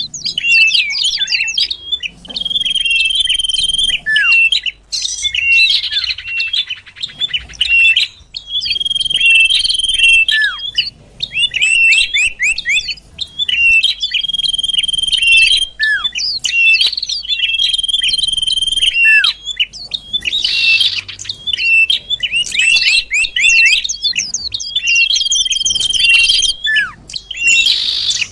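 Common iora (cipoh) song used as a bird-lure call: a long steady whistle, repeated every four to six seconds, alternating with rapid chirping runs and short down-slurred notes.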